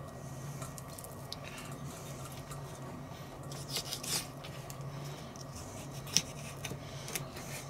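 A small kitchen knife trimming excess skin and fat off a raw chicken leg on a wooden cutting board: quiet scraping and cutting with a few sharp clicks of the blade against the board, the sharpest about six seconds in. A low steady hum runs underneath.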